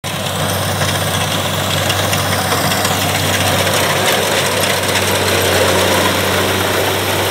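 Kubota rice combine harvester's diesel engine running steadily as it cuts and threshes rice: a constant low drone with a dense mechanical rattle and hiss over it.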